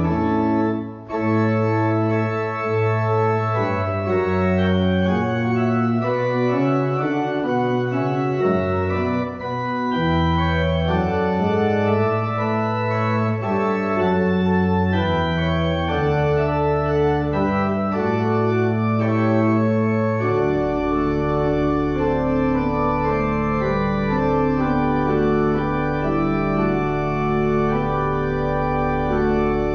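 Church organ playing a slow piece of sustained chords, the bass moving in long notes, with a brief break about a second in. About two-thirds of the way through, a deep pedal note starts and is held steadily under the chords.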